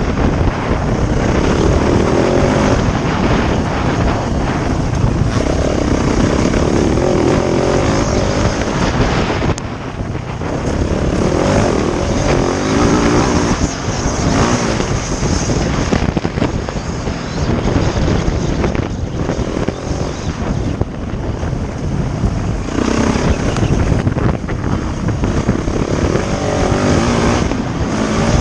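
Dirt bike engine running under way, its pitch and loudness swelling and easing every few seconds as the throttle opens and closes, with a heavy low rumble of wind on the microphone.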